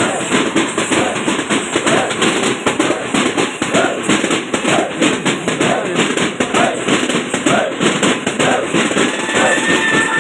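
Tappeta gullu drumming: a troupe of small frame drums (tappetas) beaten together in a fast, dense rhythm of sharp strokes.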